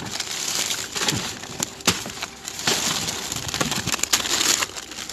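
Plastic bags and food packaging crinkling and rustling as hands rummage through a dumpster, with many sharp crackles and clicks throughout.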